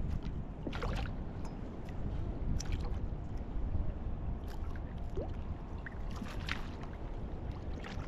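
Water lapping against a kayak hull with wind buffeting the microphone, and a few brief splashes about a second in, about two and a half seconds in and about six and a half seconds in.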